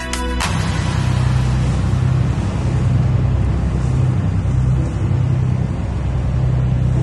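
Motorboat running at speed across open water: a steady low engine drone with rushing water noise over it.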